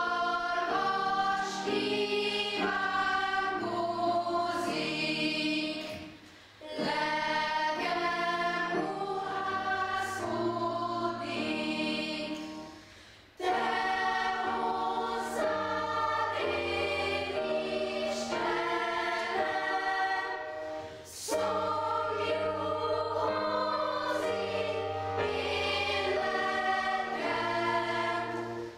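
Boys' choir singing, in four phrases with short pauses between them; the song ends right at the close.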